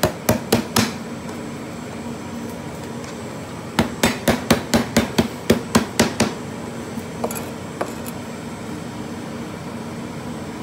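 Cleaver chopping through lemongrass stalks onto a plastic cutting board in quick sharp blows, about four a second. A run of blows ends under a second in and another runs from about four to six seconds in, with a faint steady hum in the gaps.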